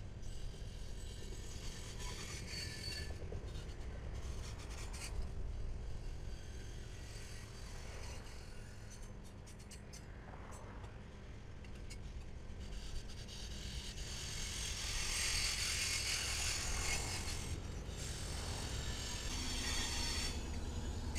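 Train on the rails: a steady low rumble, with a hiss of wheels on rail that swells in the second half.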